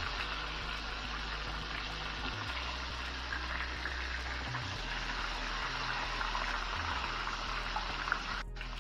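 Battered chicken breasts deep-frying in hot oil in a stainless steel pan: a steady crackling sizzle of bubbling oil. It drops out for a moment near the end.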